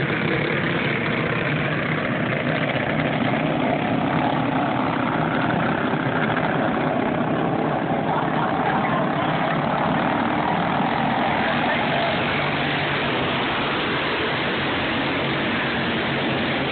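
A pack of racing go-karts with their small engines running together at speed, the pitches shifting and overlapping as the karts go around and past.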